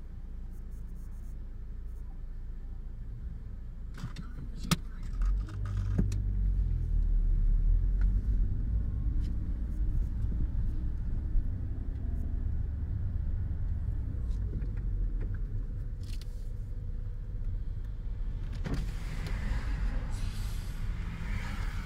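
Engine and road noise of a car driving slowly, heard from inside the cabin: a steady low rumble that grows louder about five seconds in, with a few short clicks shortly before.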